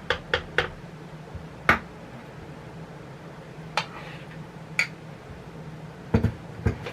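Sharp clinks and taps of a utensil against a dish, scattered irregularly, the loudest about two seconds in, with a couple of duller knocks near the end, over a faint steady low hum.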